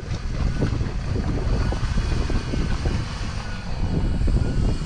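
Land Rover Defender 110 rolling slowly down a wet, stony track toward the microphone, its engine running, with heavy wind buffeting on the microphone.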